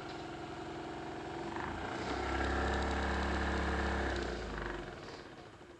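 Sears Craftsman scroll saw's motor running under its new speed controller, a steady hum that gets louder about two seconds in, then dies away near the end.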